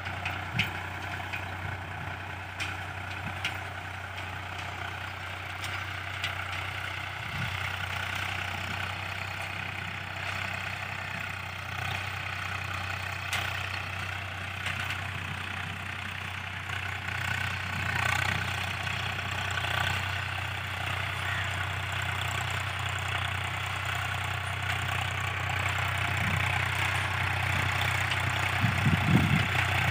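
A tractor's diesel engine running at a steady speed, with a few light clicks and a short burst of knocks near the end.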